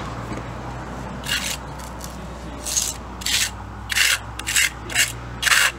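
Steel hand trowel scraping across a wet cement patch on a concrete sidewalk: about a dozen short rasping strokes that begin about a second in and come quicker toward the end.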